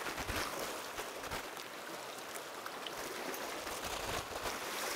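Sea water washing and trickling over rocks along the shore, a steady hiss of surf with no single event standing out.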